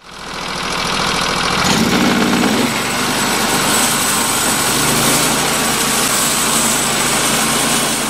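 Portable band sawmill running: its engine and band blade sawing through a squared log in a steady, loud mechanical noise with a faint high whine. It is a test cut to check whether the blade is square to the bunks.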